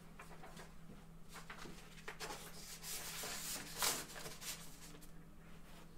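Scattered rustling and rubbing of things being handled and moved about, with a louder scrape about two-thirds of the way through, over a faint steady hum.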